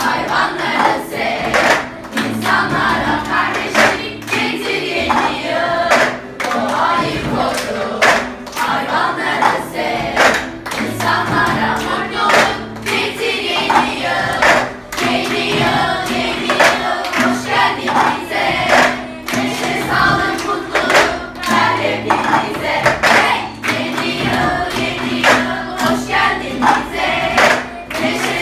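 A class of children singing a Turkish-language song together in unison, accompanied by an acoustic guitar, with sharp percussive beats keeping a steady time about once a second.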